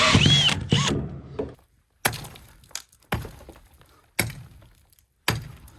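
Background music ends in two swooping tones, then four dull thunks about a second apart, each dying away before the next.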